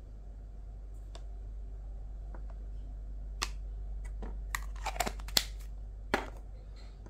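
Small hard clicks and taps as a herb grinder and plastic container lids are handled and set down on a table. There are a few faint ticks in the first half and a quick cluster in the second half, the sharpest a little past five seconds and at about six seconds.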